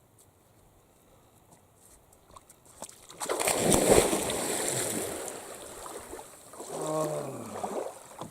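A person going into lake water: a sudden big splash about three seconds in, water sloshing as it settles, then a short vocal exclamation falling in pitch near the end.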